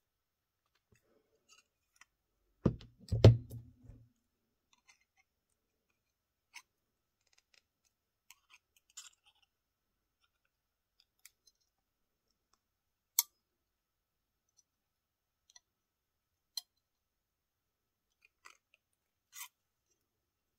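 Scattered small metallic clicks and taps of a paperclip, a bottle cap and small hand tools being handled on a work mat, with a cluster of heavier knocks about three seconds in.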